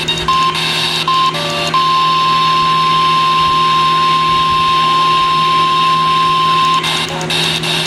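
NOAA Weather Radio 1050 Hz warning alarm tone through a weather radio: two short blips, then one steady high tone held about five seconds, which signals that an alert broadcast is coming. Radio static and a steady hum run underneath.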